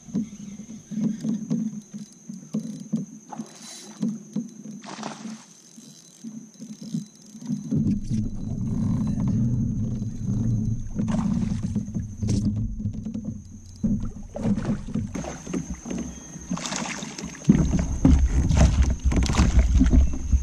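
A largemouth bass is being played from a fishing kayak: boat and water noise with scattered clicks and knocks. A louder rumbling splash builds over the last few seconds as the fish thrashes at the surface beside the kayak. A thin, steady high-pitched tone runs underneath.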